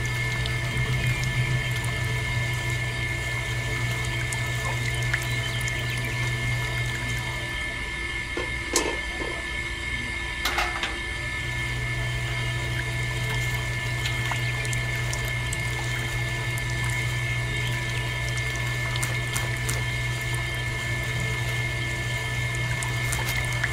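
Small electric motor running steadily, driving the belt and rollers of a miniature roller press. The hum drops out for a few seconds midway, with a couple of clicks, then resumes.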